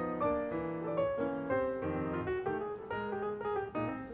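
Background piano music: a steady run of single notes over chords.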